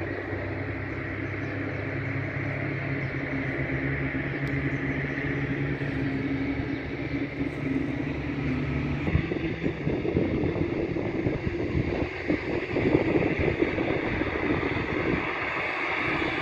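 Aircraft engines running at an airport: a steady low drone with a higher whine, the drone turning rougher and uneven about nine seconds in.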